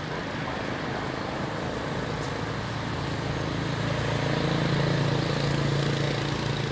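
Steady hum of a motor vehicle's engine, swelling to its loudest about five seconds in and easing slightly near the end.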